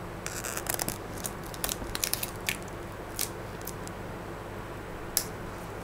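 A run of short crinkling clicks and crackles over a steady low hum, with one sharper click near the end.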